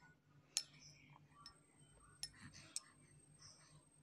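Near silence: room tone with three faint, short clicks.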